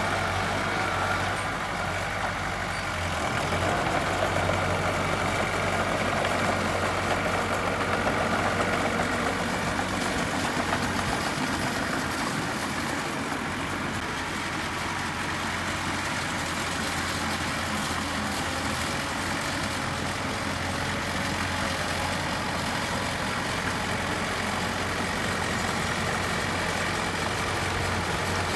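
Diesel engine of a heavy earthmoving machine running steadily at a low, even pitch.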